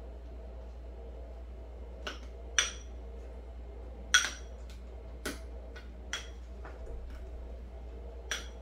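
Long metal spoon clinking against a small glass bowl while muddling fresh strawberries to press out their juice: about six sharp, ringing taps at uneven intervals, the loudest about four seconds in.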